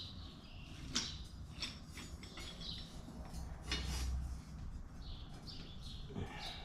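Scattered metal clicks, knocks and scrapes from a spring compressor being shifted and fitted onto a strut's coil spring.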